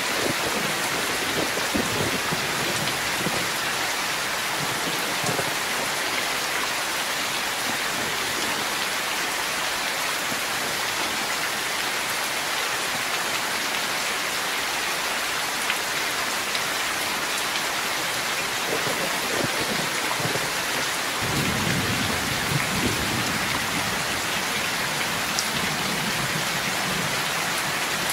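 Heavy rain falling steadily, with low rolls of thunder rumbling underneath, strongest about two-thirds of the way through.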